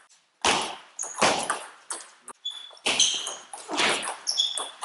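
Table tennis rally: the celluloid ball clicking sharply off bats and table about twice a second, each hit echoing in a large sports hall, with short high squeaks of shoes on the hall floor.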